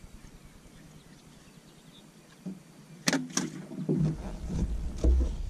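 Two sharp clicks on the boat about three seconds in, followed by a few low knocks and a thump, with low rumble on the microphone.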